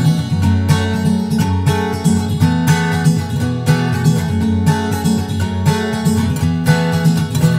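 Background music: an acoustic guitar instrumental of plucked notes.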